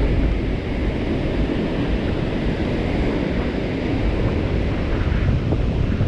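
Ocean surf breaking on the shore in a steady wash, with wind buffeting the microphone in a low rumble.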